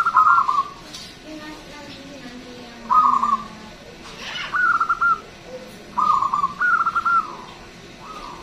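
Zebra dove (local perkutut) cooing: short phrases of rapid staccato coos, repeated about five times every second or two.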